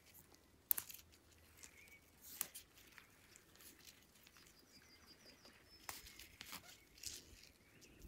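Faint, scattered rustles and snaps of grass and plant stems being handled and picked by hand, a few sharp ones standing out.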